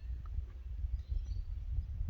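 Outdoor ambience: a gusting low rumble of wind on the microphone, with a few faint bird chirps.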